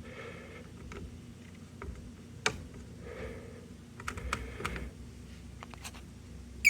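Scattered light clicks and taps of buttons being pressed on a fire alarm system's controls, singly and in small clusters. Right at the end a steady, high-pitched alarm tone starts suddenly.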